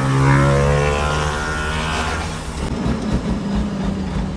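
International truck's diesel engine running as the truck drives, heard from inside the cab, with a strong pitched hum that is loudest in the first second or so.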